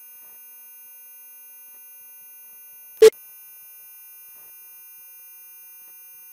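Steady 18,000 Hz sine test tone from a speaker test, played first in the left channel and then in the right. A short, loud click comes about three seconds in, where the tone switches channels.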